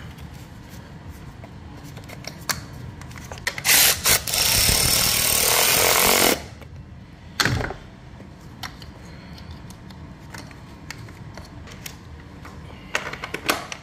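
Cordless electric ratchet on the hold-down bolt of an engine's number-two ignition coil: a couple of short blips, then one run of about two seconds. Scattered clicks from handling the tool and the coil.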